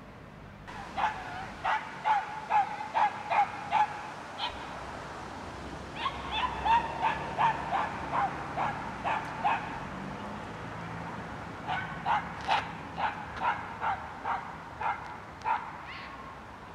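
Dog barking in three runs of short, high yaps, about two a second, with a pause of a second or two between runs.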